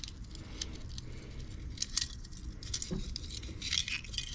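Light metallic jingling and clicking of a set of torch tip cleaners being handled, the thin wire cleaners rattling as one is picked out, in short irregular clinks.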